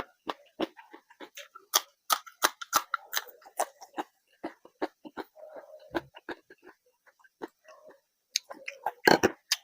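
Close-miked eating: wet chewing and mouth clicks and smacks, with a louder smack about nine seconds in.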